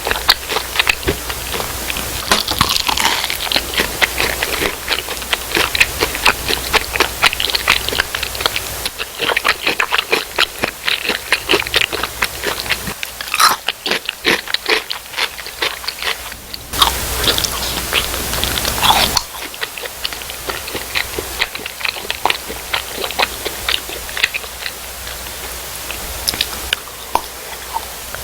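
Close-miked biting, crunching and chewing of crisp-battered fried food, many sharp crunches in quick succession. About 17 seconds in, a louder rustling noise lasts around two seconds.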